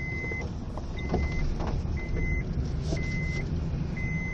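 A car's electronic warning chime beeping about once a second, each beep a steady high tone, over the low rumble of the car's engine and cabin.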